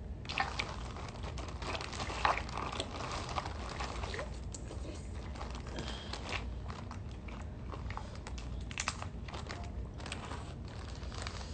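Close-up chewing and biting of seafood, with many small crunching and smacking clicks, thickest in the first few seconds and again near the end.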